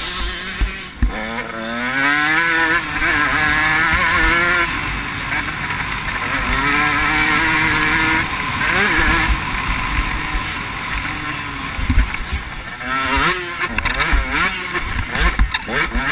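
KTM motocross bike engine, heard from a camera mounted on the bike, revving up in long rising sweeps through the gears, holding steady at speed, then rising and falling quickly near the end as the throttle is worked. Low thumps and wind buffeting on the microphone run underneath.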